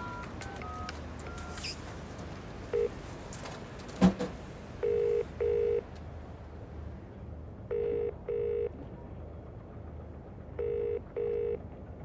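Payphone keypad tones as the last few digits are dialled, then a sharp click about four seconds in, then British double-ring ringback tone through the handset, three pairs of short rings about three seconds apart: the call is ringing at the other end and not yet answered.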